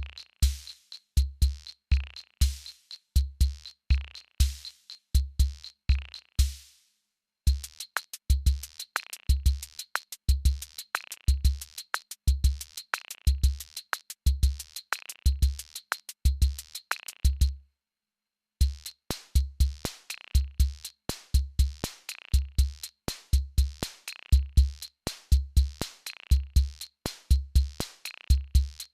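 Electronic drum machine beat: a steady deep kick about twice a second under fast, crisp hi-hat ticks. The pattern cuts out briefly twice and then resumes.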